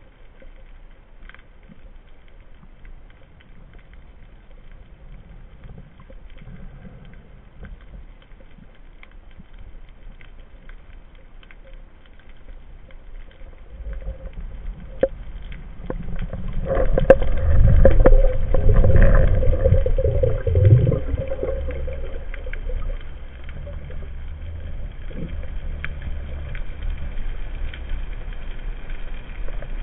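Underwater noise picked up by a camera mounted on a speargun: faint water hiss at first, then a low rumbling swell that grows loud for several seconds past the middle and eases off to a steady murmur.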